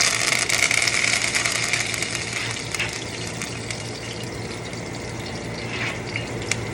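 Fresh thyme sizzling and crackling in hot vegetable oil. The sizzle is strongest at first and settles over the next few seconds, and it shows the oil is hot enough to cook in.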